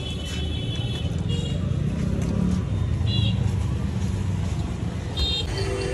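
Street traffic noise: a steady low rumble of engines, with a few short high-pitched tones and voices in the background.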